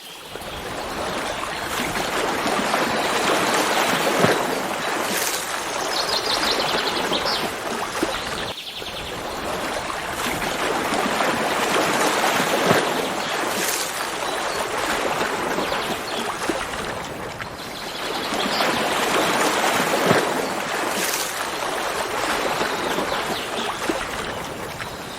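Stream of running water, its rush swelling and easing in slow waves, with a short high bird trill about six seconds in.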